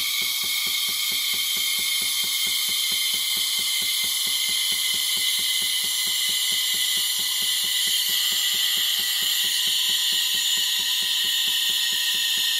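The steam wand of a KitchenAid Artisan 5KES6503 espresso machine is frothing milk in a glass with a steady, loud hiss. Underneath the hiss is a fast, even pulsing from the machine's pump.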